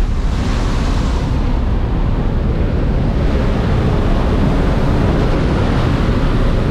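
Loud, steady rush of wind and aircraft engine noise through the open roll-up door of a skydiving jump plane in flight, with a brighter hiss in the first second or so.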